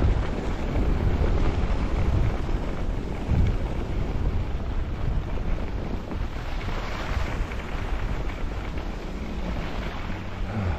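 Wind buffeting the microphone of a skier's camera during a fast downhill run, a steady low rumble with the hiss of skis on snow, which swells briefly about seven seconds in.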